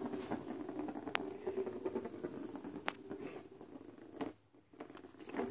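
Faint pattering and rustling with a few sharp clicks: a kitten batting a plastic ball around the track of a circular cardboard scratcher toy on carpet. The sound drops out briefly near the end.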